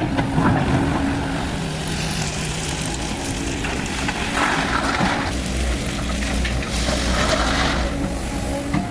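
Sany SY215C excavator's diesel engine running steadily at work, with a low hum and surges of noise a few times as it works.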